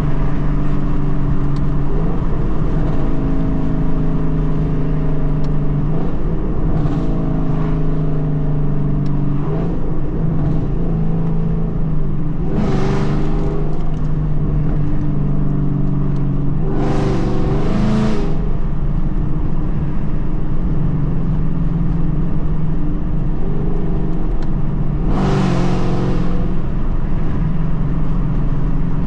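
A car engine running steadily while driving, its pitch shifting a little. Three brief louder rushing sweeps come through, about twelve, seventeen and twenty-five seconds in.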